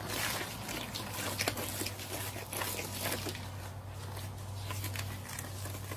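Wet concrete mix being stirred and scraped around a plastic tub with a hand tool: irregular scrapes, clicks and wet squelches, over a steady low hum.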